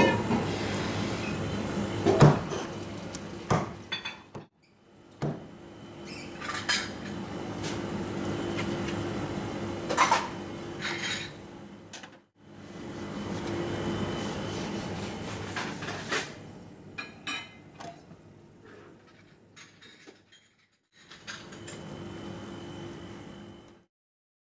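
Knife and fish pieces knocking and scraping on a plastic cutting board while a fish is filleted, with a few sharp knocks, over a steady kitchen hum. The sound cuts out suddenly several times.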